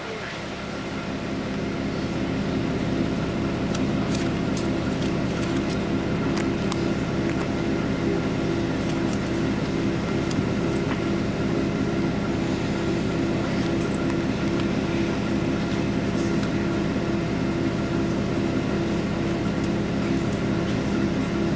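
Vehicle engine running steadily: a low drone with a slight regular pulsing. It builds over the first two seconds, then holds.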